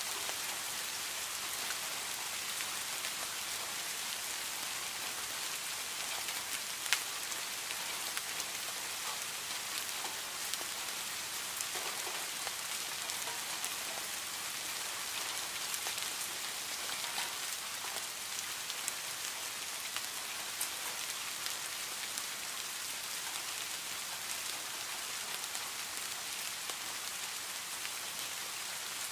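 Heavy rain falling steadily on leaves and grass, an even hiss with the sharper taps of single drops; one drop hit stands out about seven seconds in.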